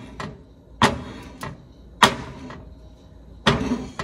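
Wooden spoon stirring thick pasta sauce in a deep nonstick skillet and knocking against the pan, several sharp knocks about a second apart.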